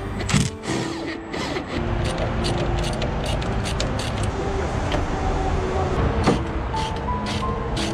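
Metal clicks and clanks of hand tools and parts during disassembly work on a semi-truck's cab and chassis, scattered irregularly over a steady low rumble.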